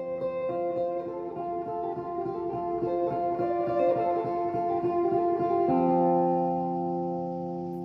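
Background music: a plucked guitar playing quick notes, settling into a held, ringing chord near the end.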